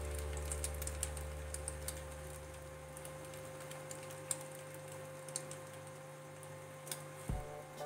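Egg-dipped bread frying in oil on a flat iron tawa: scattered small crackles and pops of the sizzle. A low steady hum fades out about three seconds in, and a couple of soft knocks come near the end.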